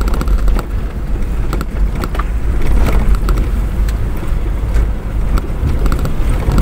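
A vehicle driving along a rough concrete road: a steady low rumble, with many short rattles and knocks scattered through it.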